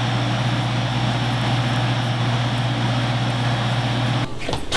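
A steady mechanical drone, a strong low hum under an even hiss, that cuts off suddenly about four seconds in.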